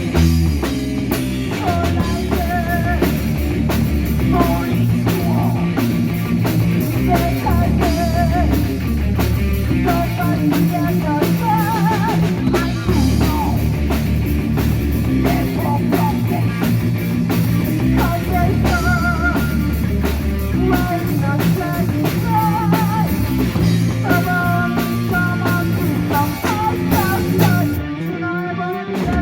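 Heavy metal music: a rock drum kit played hard and fast under distorted electric guitar, bass and singing. The low end drops out briefly near the end before the band comes back in.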